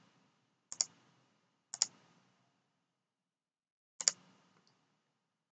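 Three computer mouse clicks, each a quick press-and-release pair: one about a second in, one near two seconds and one about four seconds in, with quiet between.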